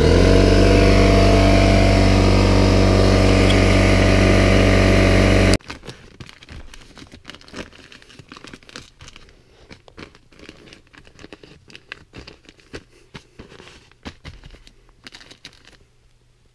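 A 6-gallon, 150 psi pancake air compressor starts and runs with a loud, steady hum, cut off suddenly about five and a half seconds in. Then paper-faced fiberglass insulation crinkles and rustles as a gloved hand presses a batt between the studs.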